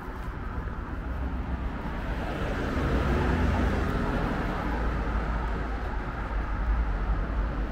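Road traffic noise, growing steadily louder as a vehicle approaches.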